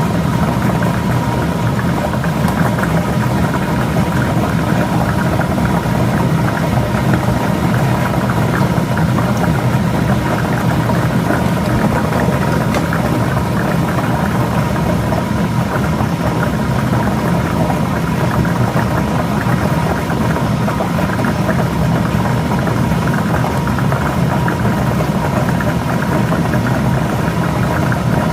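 Lotto ball drawing machine running: its blower motor whirs steadily while the plastic balls rattle and clatter continuously inside the drum.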